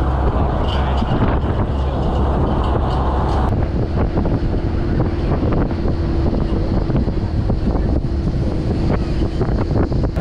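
Off-road safari jeep driving, a steady low engine and road rumble with wind buffeting the microphone and scattered knocks and rattles. The sound changes about three and a half seconds in, and a steady hum then comes through.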